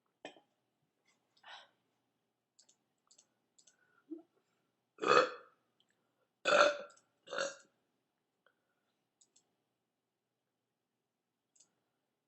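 A woman belching: two short burps in the first couple of seconds, then three loud burps in quick succession about five to seven and a half seconds in. Faint clicks sound between them.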